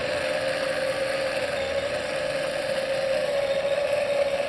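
Motor of a motorized fire tornado rig running with a steady, unchanging whine as it spins the screen cylinder around the burning pan.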